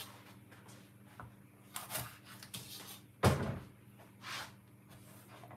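A few scattered knocks of things being handled on a wooden chopping board, the loudest a single thump about three seconds in.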